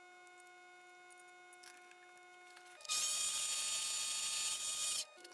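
Faint steady hum, then about three seconds in a mini metal lathe starts running, its chuck-held high-speed steel end mill cutting an indent into a brass thumbscrew head; the loud, even, high-pitched machining noise lasts about two seconds and cuts off suddenly.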